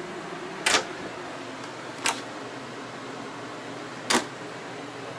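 Three short, sharp clicks at uneven intervals, about a second, two seconds and four seconds in, over a steady background hum.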